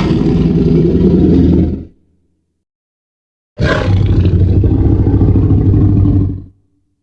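Monster roar sound effect blending the 2014 Godzilla roar with the Jurassic Park Tyrannosaurus rex roar. One roar ends about two seconds in, and after a short silence a second, longer roar plays and cuts off near the end.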